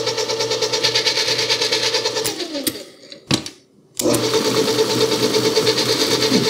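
Hobart N50 stand mixer running steadily with a whine, whipping cream. About two and a half seconds in it is switched off and winds down; a single click follows, and about a second later the motor starts again at full running sound.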